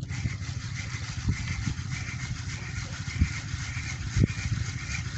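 Fishing boat's inboard engine running steadily with an even pulsing beat, with a few short knocks about a second in, three seconds in and four seconds in.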